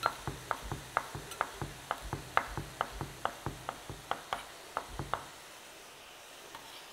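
Chef's knife finely chopping dill on a wooden cutting board: a quick, even run of knocks, about four a second, that stops about five seconds in.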